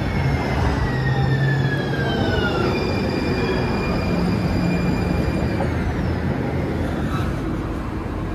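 Electric drive whine of a transit vehicle slowing down: several high tones slide slowly down in pitch over the first six seconds or so, above a steady rumble.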